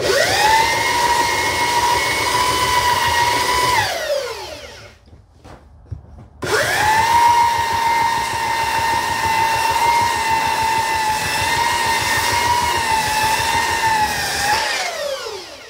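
Old Bosch belt sander with a 180-grit belt sanding wood, its motor running with a steady whine. About four seconds in it is switched off and spins down with falling pitch. It starts again a couple of seconds later, runs steady and spins down again near the end.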